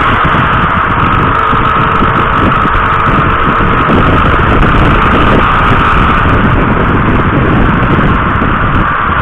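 Steady running noise of a road vehicle on the move: engine, tyre and wind noise that holds even throughout.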